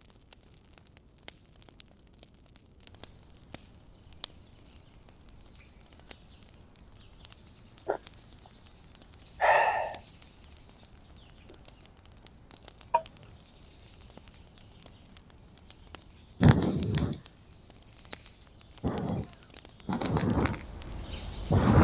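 Quiet stretch with scattered light clicks and a short sound about nine and a half seconds in, then several short loud bursts of rustling near the end.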